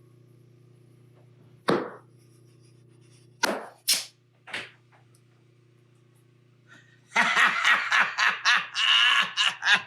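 Tire bead popping onto the rim of a Onewheel hub: four sharp pops over a steady low hum, then a fast run of sharp slapping sounds over the last few seconds as the bead seats.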